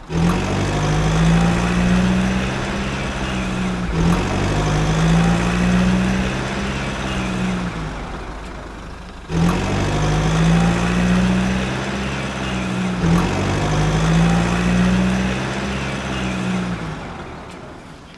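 Heavy vehicle engine running, its pitch rising a little and easing back in repeated cycles of about four to five seconds, each cycle starting abruptly; it fades out near the end.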